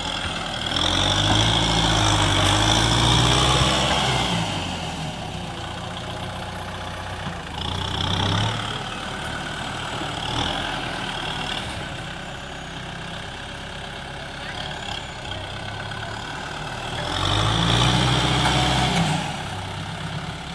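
Kubota M6040SU tractor's four-cylinder diesel engine running under load as its front dozer blade pushes loose dirt, revving up louder about a second in for a few seconds and again near the end.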